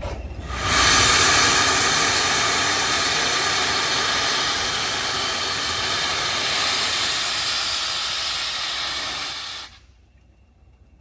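Flying Scotsman, the LNER A3 steam locomotive 60103, letting off steam: a loud, steady hiss that starts about half a second in and cuts off sharply about a second before the end.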